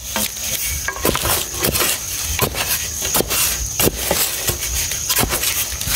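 Spade digging into forest soil: repeated crunching, scraping strikes, about one every three-quarters of a second.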